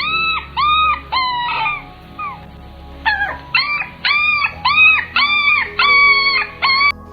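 A puppy whining and yelping in a quick series of short calls, each rising and falling in pitch. About five come in the first two seconds, then after a pause about eight more, over quiet background music.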